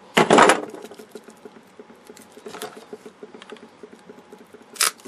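Pliers crunching and breaking the brittle plastic casing of an old capacitor: one loud crunch a fraction of a second in, then small crackles and ticks of the casing giving way, and a sharp click near the end.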